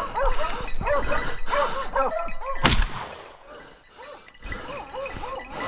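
Plott hounds baying in repeated howling calls, cut by a single loud shotgun shot about two and a half seconds in, fired at a wild boar with slugs. After the shot the baying goes on more faintly.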